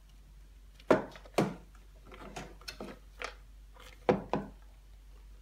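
A few light wooden knocks and bumps as toys are handled against a wooden doll treehouse: two sharp knocks about a second in, a scatter of softer taps, then two more sharp knocks a little after four seconds.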